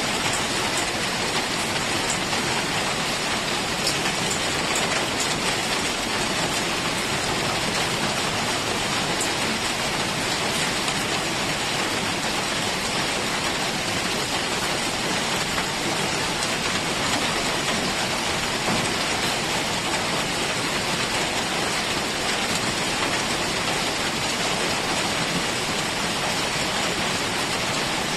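Heavy rain falling steadily in a forest, an even hiss of rain with scattered drop patter, holding constant throughout.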